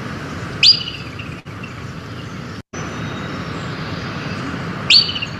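Groundhog (woodchuck) giving its alarm whistle twice, about four seconds apart. Each is a loud, high, sharp peep that drops quickly in pitch and then holds briefly, over a steady background hiss.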